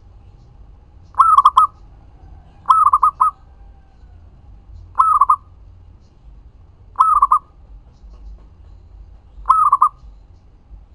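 Local zebra dove (perkutut) cooing: five short phrases of quick coos, each about half a second long and repeated every two seconds or so.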